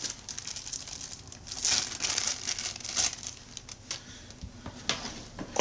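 Thin plastic packaging bag crinkling and rustling in uneven bursts as a coiled Ethernet cable is taken out of it, with a few light clicks.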